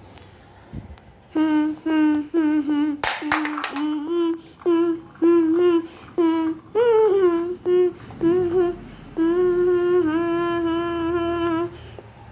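A young girl humming a string of short, even notes at nearly one pitch, ending in a longer held note. A brief noisy rustle comes about three seconds in.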